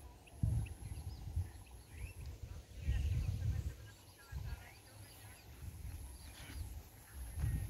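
Wind buffeting the microphone in uneven low gusts, with scattered small bird chirps in the background.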